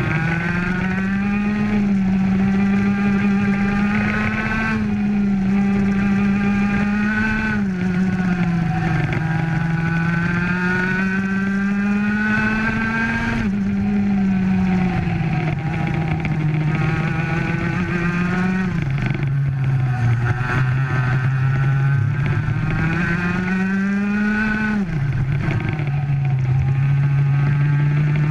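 Racing kart engine at full throttle. Its pitch climbs steadily along each straight and drops sharply each time the driver brakes and lifts off, several times over.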